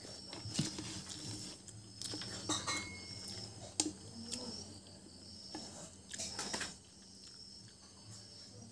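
Close-up eating sounds: chewing and wet lip smacks, with scattered sharp clicks, as a mouthful of rice and fish curry eaten by hand is chewed, over a low steady hum.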